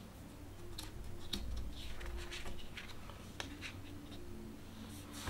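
Oracle cards being slid and moved by hand on a cloth surface: soft, faint scraping and rubbing of card stock with a few light taps.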